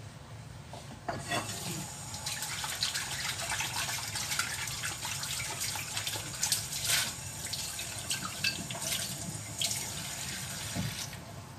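Kitchen tap running into a sink, the stream splashing on a plate as it is rinsed and rubbed by hand; the water comes on about a second in.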